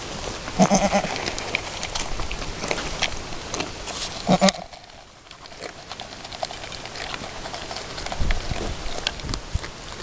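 Camosciata delle Alpi goat giving two short, low bleats, about a second in and again at about four and a half seconds, over small clicks and rustling.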